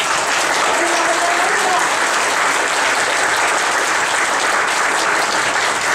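Audience applauding steadily, a hall full of people clapping.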